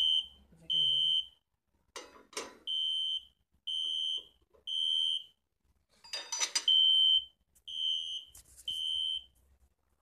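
Smoke alarm sounding its temporal-three alarm pattern: three high half-second beeps about a second apart, a pause, then three more, the signal of smoke detected rather than a low-battery chirp. A few knocks and rattles fall in two of the pauses.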